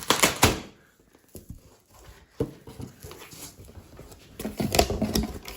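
Baby stroller parts and their packaging being handled: loud knocks and clatter at the start, scattered rustling, and another burst of knocks and rustling about four and a half seconds in.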